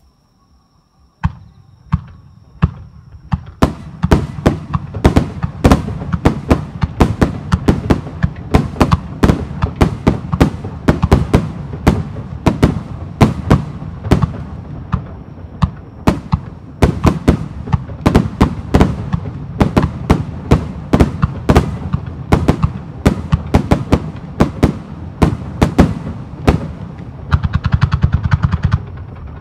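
Starmine fireworks: aerial shells fired in rapid succession and bursting with sharp bangs. A few single bangs come about a second in, then it builds to a dense barrage of several bangs a second. A denser crackling near the end.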